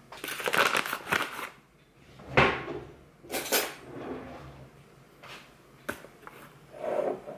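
Crinkly foil bag being handled and rustled in several irregular bursts, with a few light knocks of kitchen things against each other.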